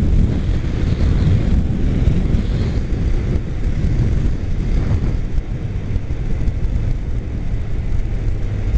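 Motorcycle riding at freeway speed: a loud, steady, rough rumble of wind buffeting the microphone over the engine and road noise.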